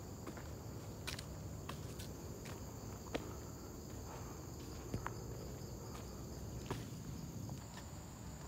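Footsteps on a dirt forest trail with leaf litter, irregular crunches and taps a second or so apart, over a steady high-pitched insect drone.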